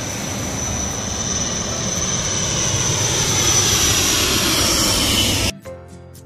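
A jet aircraft flying over low, its roar with a high whine growing steadily louder. It cuts off abruptly about five and a half seconds in.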